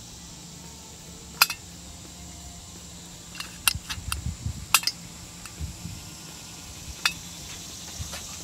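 Light metallic clicks and clinks from a removed Holley carburetor float bowl being handled, its float and bowl screws knocking. There is a single click about a second and a half in, a quick flurry in the middle, and two more near the end.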